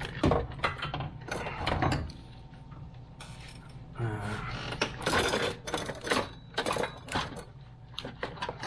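Metal clanks and knocks from a new automotive AC compressor as it is worked into place and bumps against brackets and hoses in a tight engine bay. The knocks come in bunches, in the first two seconds and again in the second half.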